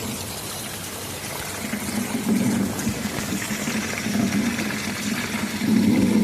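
Steady heavy rain with a low, uneven rumble of thunder that swells from about two seconds in and grows louder near the end.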